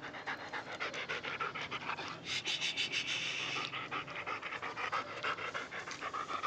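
German shepherd panting fast and steadily, several breaths a second, a little heavier for a moment near the middle.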